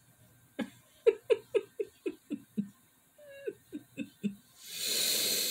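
A woman laughing: two bouts of short 'ha' pulses, about four a second, each falling in pitch. Near the end comes a loud breathy rush of noise, louder than the laugh.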